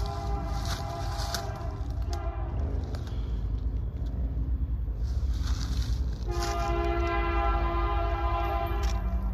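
Horn of an approaching freight train's lead locomotive, a CP SD70ACu, sounding twice: a blast that ends about two seconds in, then a longer, louder one from about six seconds in until near the end, over the low rumble of the oncoming train.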